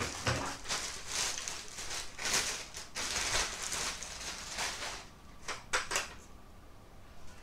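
Clear plastic wrapping and a nylon carry bag rustling and crinkling as a tripod is unpacked by hand, dense for the first few seconds, then a couple of short sharp rustles and quieter after.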